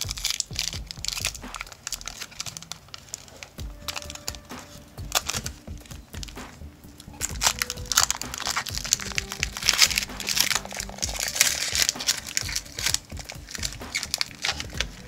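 Plastic trading-card pack wrapper crinkling and tearing as it is opened, in rapid irregular crackles that grow louder and denser from about eight seconds in.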